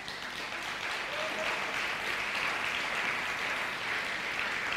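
Congregation applauding, a steady clatter of many hands that swells just before and holds at an even level.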